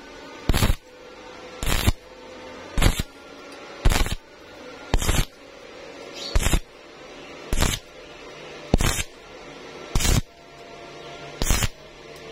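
Stick welding arc crackling in short bursts about once a second, ten in all: the electrode is struck and pulled off again and again, a stitch technique for welding thin 0.9 mm galvanized steel.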